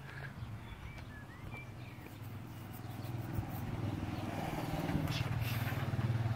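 A motor vehicle's engine, a steady low hum that grows gradually louder through the second half.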